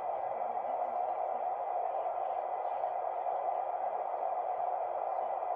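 Dull, steady static hiss from a CB radio receiver, with no voices coming through.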